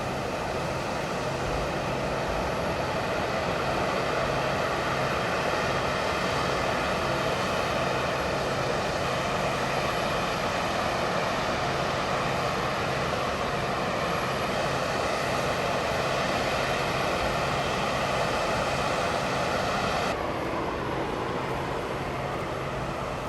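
Jet engines of a large aircraft running steadily: a dense rushing noise with several steady whining tones over a low hum. About twenty seconds in, the high whine drops away and the sound eases a little.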